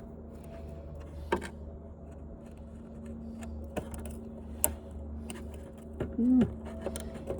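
Scattered sharp clicks and light knocks of parts being handled, over a steady low hum. Just past six seconds a brief low pitched sound, like a short grunt, is the loudest thing.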